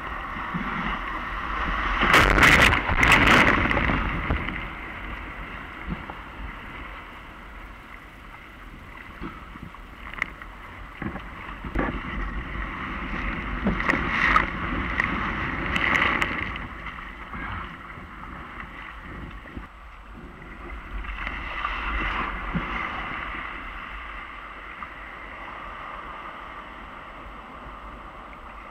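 Ocean surf and water rushing and splashing around a surf kayak's bow, with louder surges of breaking whitewater about two to four seconds in, again around fourteen to sixteen seconds, and around twenty-two seconds.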